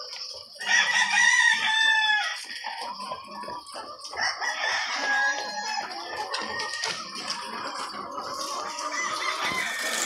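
A flock of caged white laying hens clucking and calling, with one loud, drawn-out call about a second in and more calls following.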